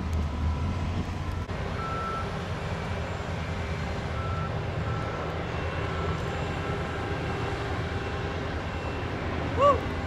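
Construction machinery: a steady low engine rumble with faint, intermittent beeps of a reversing alarm, and a short rising-and-falling squeak near the end, the loudest sound.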